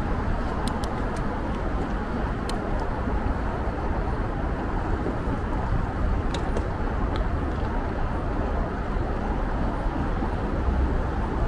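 Steady city traffic noise with low road rumble, and a few faint light clicks scattered through it.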